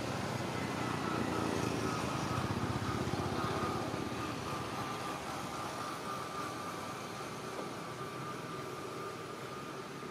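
An engine's low rumble, strongest over the first few seconds and fading away after that, with a steady high whine held throughout.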